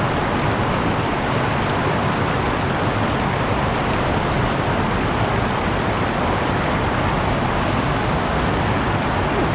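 Steady rushing noise with no pauses and no distinct events.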